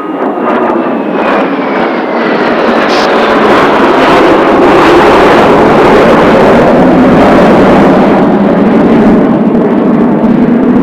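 Kawasaki T-4 jet trainers of a formation flying over, their turbofan engines building to a loud, steady roar over the first few seconds and holding there, with a falling whine early on.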